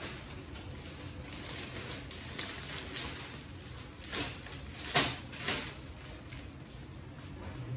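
Rustling and crinkling of the paper wrapping on a large rose bouquet as it is lifted and turned, with a cluster of three sharper crackles a little past the middle, the middle one the loudest.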